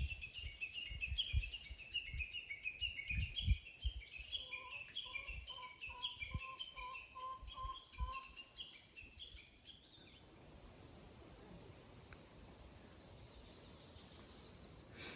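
Wild birds chirping busily, many short quick notes with upward flicks, with a run of lower, evenly repeated notes joining about halfway through. The birdsong stops about ten seconds in, leaving a faint steady outdoor hiss; a few low thuds sound early on the microphone.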